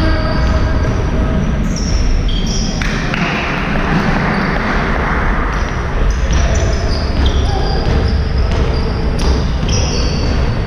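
Basketball game sounds on a sports-hall court: the ball bouncing, and many short high squeaks from sneakers on the floor, with players' voices calling out.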